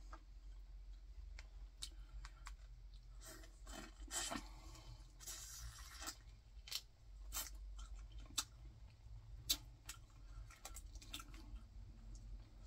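Boiled crawfish shells being cracked and peeled by hand, a run of small sharp clicks and crackles, with wet mouth sounds about halfway through as the tail meat is eaten. Two louder cracks come later.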